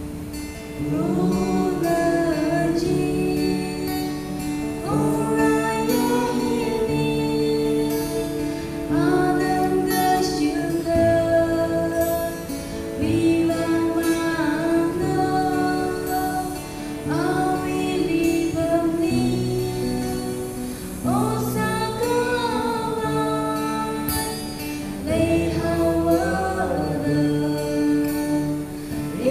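A woman singing a slow song to acoustic guitar accompaniment, a new phrase starting about every four seconds.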